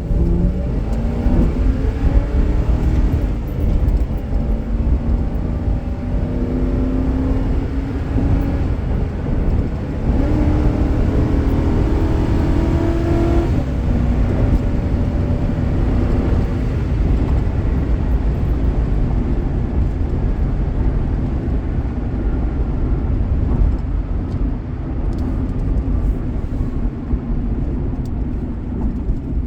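Ford Crown Victoria's V8 engine accelerating hard, its pitch rising over the first few seconds and again from about eight seconds, then dropping off suddenly about halfway through. For the rest it runs on steadily under a low road rumble.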